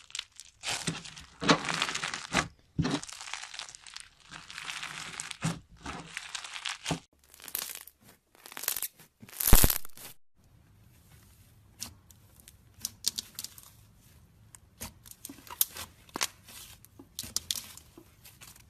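Slime being squeezed and stretched by hand, giving dense crackling and popping; about ten seconds in it switches to quieter, scattered clicks and pops.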